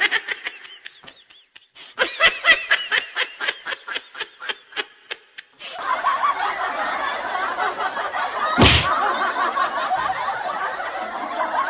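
Someone laughing in quick, repeated bursts. This gives way about six seconds in to a dense, busy noise, broken by one sharp knock near the three-quarter mark.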